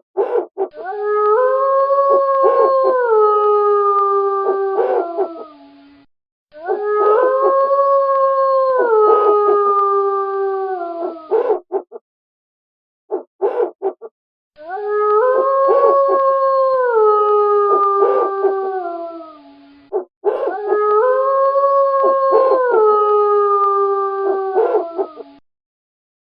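Wolves howling: four long howls of about five seconds each, several voices together, each holding steady and then dropping in pitch in steps near its end. Short clusters of brief sounds fall in the gaps between the howls.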